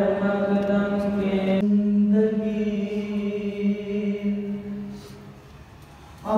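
A man reciting a naat unaccompanied into a microphone, holding long drawn-out notes. The voice falls away about five seconds in and comes back in at the end.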